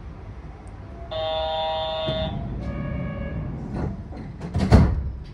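Yurikamome train's door-closing chime: two steady electronic tones, the second one lower. The sliding doors then shut with a few clicks and a loud thump near the end, over the low hum of the stopped train.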